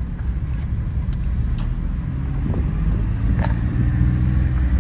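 Mahindra Bolero driving, its engine a steady low rumble mixed with road noise, with a single sharp knock or rattle about three and a half seconds in.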